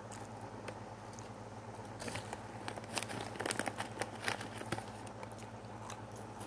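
A dog crunching a crisp biscuit, a quick run of sharp crunches about two to four and a half seconds in, over a steady low hum.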